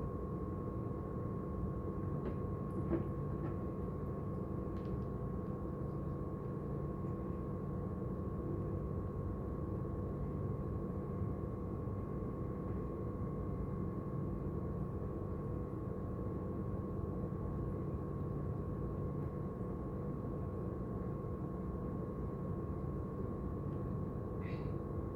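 Steady mechanical hum with a constant high tone above it, like a fan or appliance motor running, and a few faint light ticks from handling.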